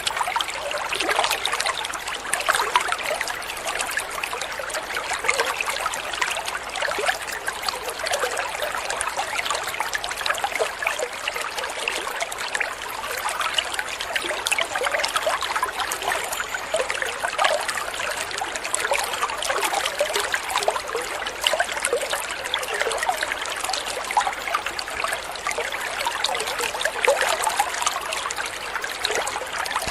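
Shallow water trickling and babbling steadily, a continuous light splashing without any deep rush.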